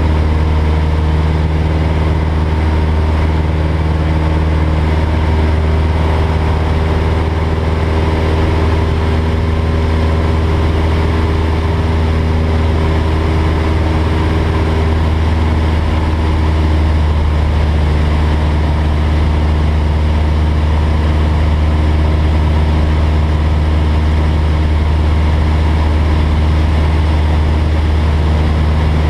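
Single-engine light aircraft's engine and propeller running steadily in flight, a loud, even hum with steady low tones and wind noise, heard from inside the cabin.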